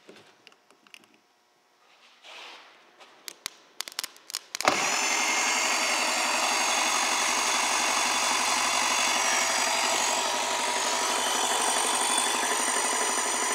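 Polaris 1200 two-stroke watercraft engine, its cylinder heads off, spun over by its electric starter on a jump pack: a steady, even whir starting about five seconds in and running on without firing. A few sharp clicks come just before it.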